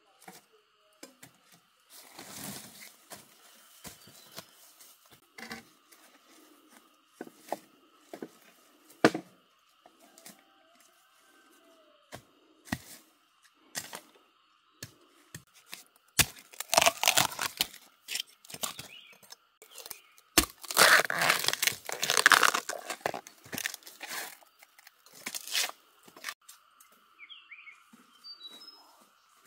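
Irregular tearing and snapping of plant material, short cracks scattered throughout and two longer, louder tearing spells about halfway through, over a steady high-pitched whine.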